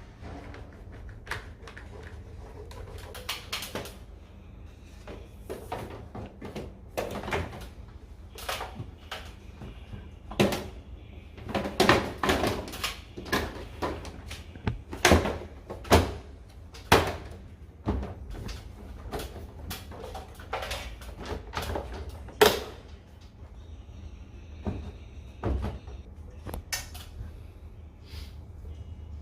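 Irregular plastic clicks, knocks and rattles of air conditioner indoor-unit parts being handled and unclipped during disassembly, busiest in the middle, over a steady low hum.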